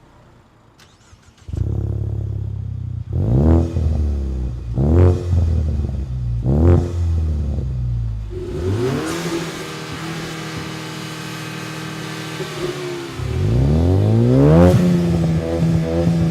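Ford Mustang EcoBoost turbocharged four-cylinder through its exhaust: the engine comes in about a second and a half in, is blipped three times in quick rising-and-falling revs, then held at higher revs for several seconds, revved once more near the end and settles to a steady note.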